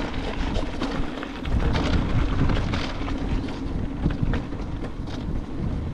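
Wind buffeting an action camera's microphone while riding an e-mountain bike downhill on a rough dirt track, over a constant low rumble of tyres on stones and frequent short knocks and rattles from the bike.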